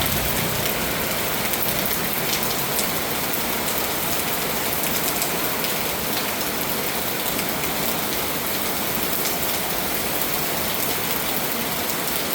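Heavy rain falling steadily in a downpour, an even rushing sound that does not let up.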